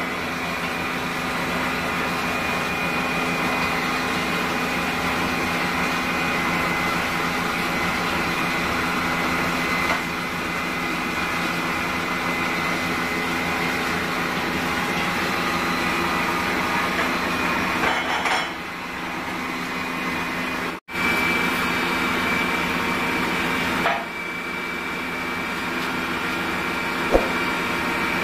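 A steady machine hum with several held tones, cutting out abruptly for a moment about two-thirds of the way through.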